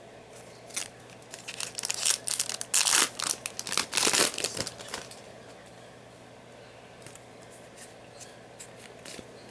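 A Yu-Gi-Oh! booster pack's foil wrapper torn open and crinkled, a quick run of sharp crackling strokes that peaks about three to four seconds in, followed by faint light ticks of the cards being handled.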